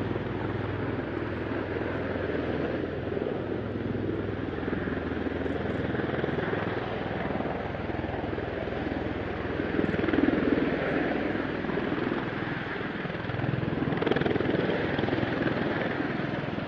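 V-22 Osprey tiltrotor's engines and proprotors running, a steady drone that swells louder about ten seconds in and again around fourteen seconds.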